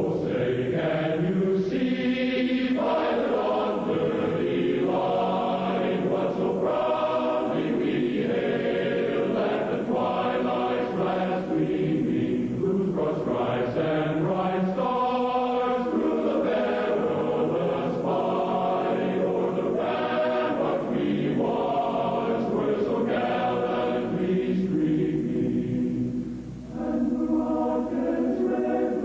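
A choir singing slow, held chords, each note sustained for a second or two before moving on, with a short break near the end before a new phrase.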